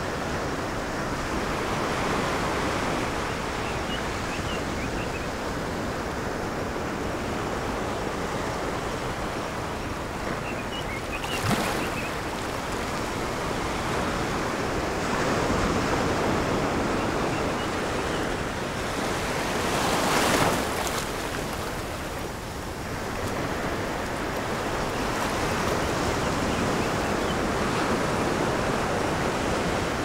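Ocean surf: small waves breaking and washing in over a shallow beach, a steady rushing that swells and ebbs, with a brief louder crash about eleven seconds in and another about twenty seconds in.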